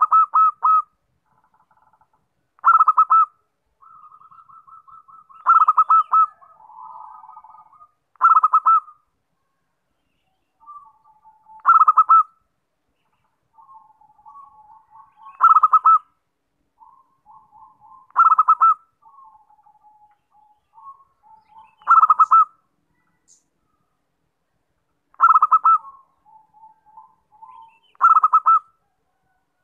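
Zebra dove (perkutut) cooing: a loud, short coo phrase about every three seconds, with softer, rapid stuttering coo notes in between.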